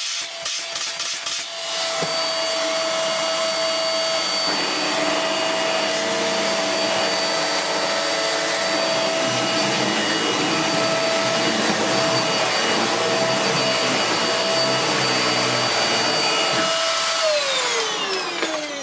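Vax Mach Air upright bagless vacuum cleaner running steadily during a suction test after its mains cable was replaced, showing it works again. A deeper rumble joins in about four seconds in. Near the end the motor is switched off and its whine falls away as it spins down.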